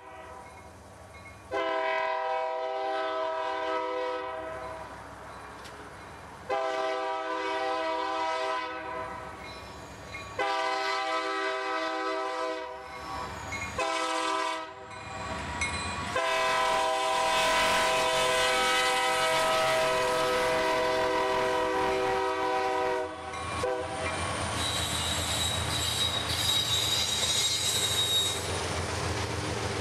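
A diesel freight locomotive's air horn sounds a series of blasts: two long, two shorter, then one long blast held for about seven seconds. After the horn stops, the train rolls past with steady wheel-on-rail noise and a thin, high wheel squeal near the end.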